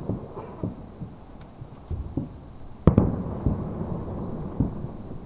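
Fireworks shells bursting in an irregular run of booms, the loudest about three seconds in, followed by a rolling rumble.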